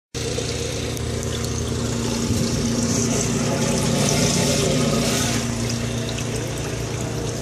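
Muddy water pouring steadily out of steel outlet pipes into the chambers of a stainless-steel portable sediment tank, a continuous splashing rush, with a steady engine hum beneath it.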